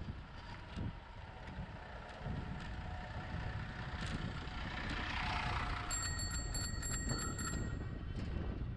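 Wind rushing over the microphone of a bike-mounted camera with low road rumble, a hiss swelling about five seconds in. About six seconds in, a bicycle bell rings rapidly, a fast trill of strikes lasting about a second and a half.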